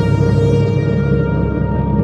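Ambient background music: long held tones, steady in level.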